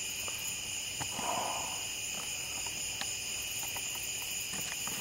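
Night-time chorus of crickets and other insects: a steady, shrill, many-layered trill, with a couple of faint ticks and a brief soft hiss about a second in.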